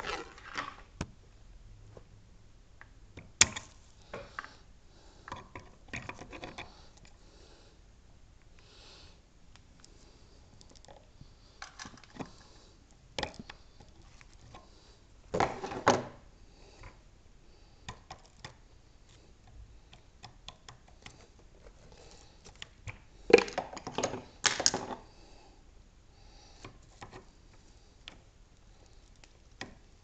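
Metal lockpicking tools clicking and scraping in a brass Mila Evolution cylinder lock, in scattered short bursts. The longest, loudest clusters come about halfway through and again about three-quarters of the way in.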